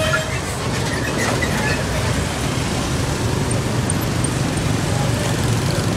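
Busy street ambience: a steady rumble of passing traffic mixed with the chatter of a crowd.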